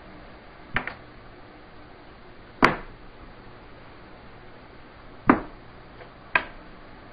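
Red plastic 12-gauge shotgun shells and doussie-wood shell holders being set down on a wooden workbench: four sharp knocks, the loudest a little under three seconds in, over a steady low hiss.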